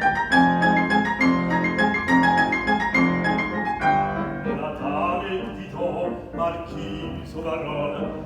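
Live acoustic piano playing classical opera accompaniment in evenly repeated chords over steady bass notes, turning softer after about four seconds.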